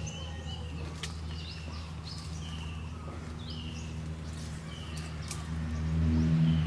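Birds calling in repeated short, high chirps about once a second, with a couple of sharp ticks. Underneath runs a steady low hum that grows louder near the end.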